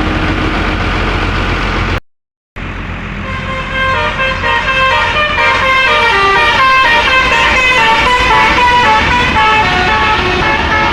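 A vehicle engine running, then, after a brief dropout, a bus's telolet basuri horn plays a quick melody of stepping notes, several tones sounding together.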